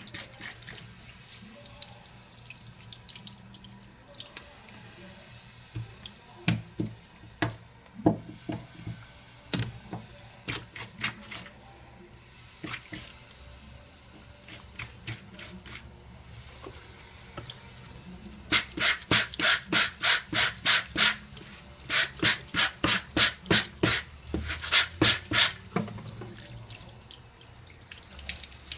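Thin stream of tap water running onto a tiled floor drain, splashing over painted fabric being rinsed under it. Scattered sharp knocks a few seconds in, then a long run of sharp smacks, about four a second with short breaks, in the second half.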